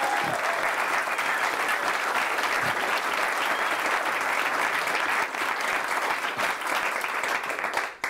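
Audience applauding steadily, stopping abruptly near the end.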